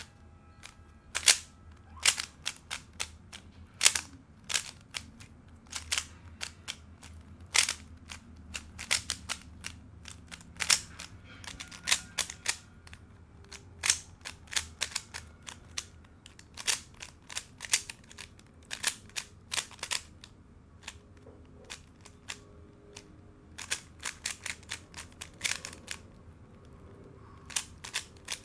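Moyu RS3M 2020 3x3 speed cube being turned fast during a timed solve: the plastic layers snap and clack in quick runs of turns, broken by short pauses.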